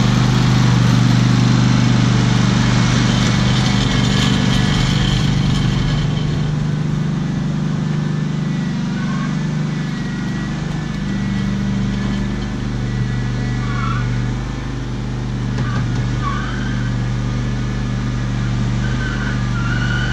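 Riding lawn mower's small engine running steadily under load as it tows a pickup truck; its note shifts and dips partway through, then settles back.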